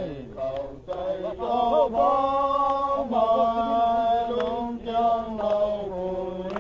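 A group of men singing a hymn together, in long held notes.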